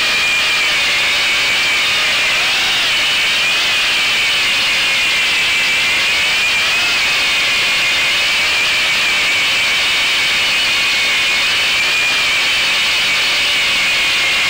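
RC airplane's motor and propeller whining steadily, heard up close from a camera on board, the pitch wavering slightly up and down with throttle.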